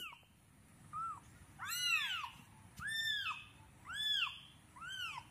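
Young kittens mewing: a string of short, high mews, each rising and falling in pitch, about one a second. Two overlap near the middle.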